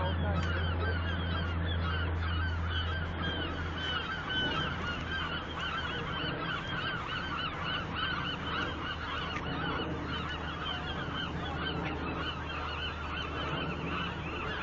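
A large flock of birds calling, many short calls overlapping without a break. A low steady hum runs underneath, stronger for the first four seconds.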